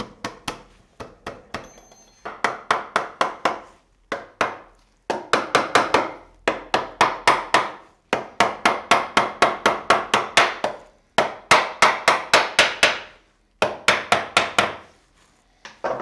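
Small hammer tapping on an oak workbench leg assembly to drive a snug-fitting rail into its joint. The blows come in quick runs of about five a second, with short pauses between the runs.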